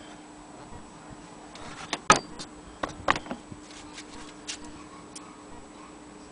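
Irregular small metallic clicks and knocks from an antique Maxfield Agenoria sewing machine being handled, the loudest two about a second apart near the middle.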